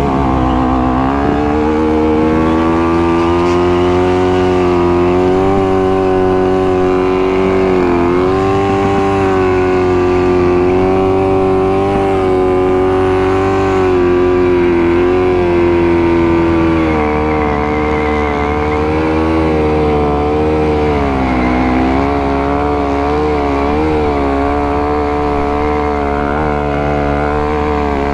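A vehicle engine held at high, fairly steady revs for the whole stretch, its pitch wavering and dipping briefly about eight and again about twenty-one seconds in.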